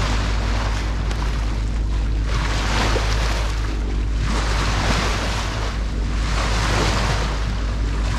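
Water rushing and splashing along a sailboat's bow, surging up every couple of seconds as the boat rides through a swell, over a steady low drone and wind on the microphone.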